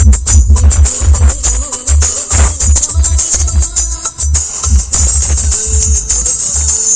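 Music played loud through a 2.1 subwoofer amplifier system. Deep bass beats pulse several times a second under a steady bright shaker-like percussion.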